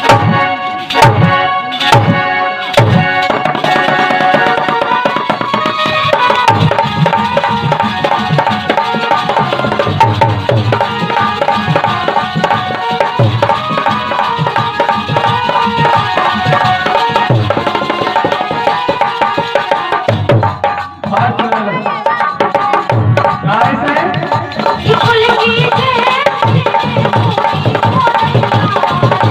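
Indian folk music passage without vocals: hand drums play a steady rhythm under a sustained melody instrument, with sharp drum strokes in the first few seconds and a brief break about two-thirds of the way through.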